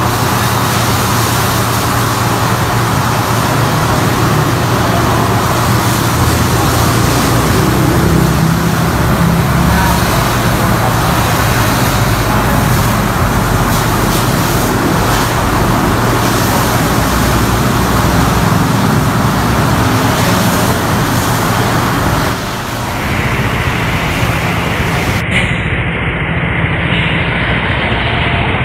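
Vehicle engines running steadily, with a low hum under a constant hiss. About three-quarters through, the sound changes abruptly to a duller engine hum.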